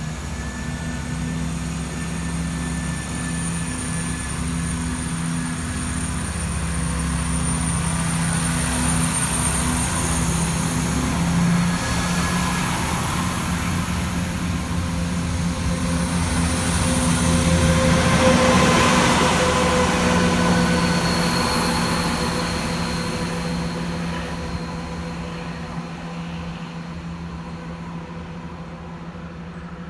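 Diesel train running past with a steady low engine hum and faint high whines, growing louder to a peak a little past halfway, then fading away.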